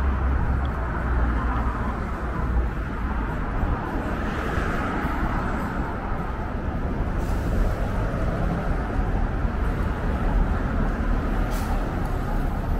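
City street traffic: cars and a bus running past in a steady wash of engine and tyre noise. A low engine rumble is heaviest in the first few seconds, and a short hiss comes near the end.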